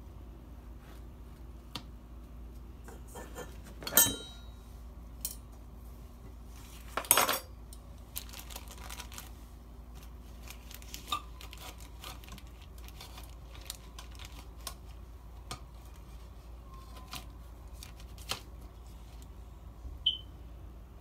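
Metal kitchen utensils clinking and scraping in a pan as a knife and a metal spatula cut and lift pieces of grilled bread cake: scattered light taps and scrapes, with two louder clatters about four and seven seconds in.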